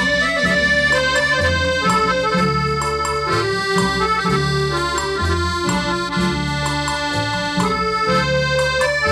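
Instrumental break in a Thai luk thung song with no singing: a melody of held notes over a steadily moving bass line.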